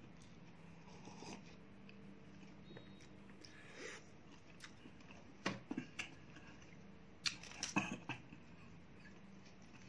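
Clicks and knocks of a plastic food container and takeaway tray being handled on a table while eating, in two short clusters a couple of seconds apart, over a faint steady hum.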